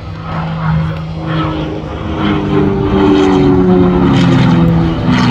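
GameBird GB1 aerobatic plane's six-cylinder Lycoming engine and propeller running at high power in flight. It grows louder over the first few seconds, then its pitch drops toward the end.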